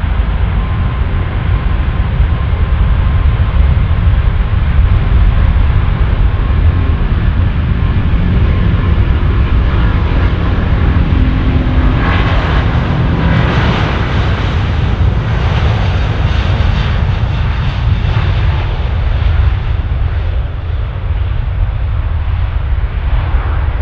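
Airbus A380's four Rolls-Royce Trent 900 turbofans at takeoff power: a deep, steady jet rumble with a thin whine at first. About halfway the sound turns brighter and harsher as the jet rolls past, then eases off.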